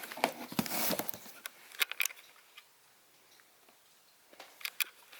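Cardboard box being handled and turned over: short rustles and light taps in the first two seconds, then a few sharp clicks near the end.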